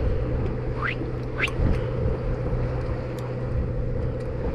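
Boat engine running steadily, a low drone with a constant hum. Two short rising squeaks sound about one and one and a half seconds in.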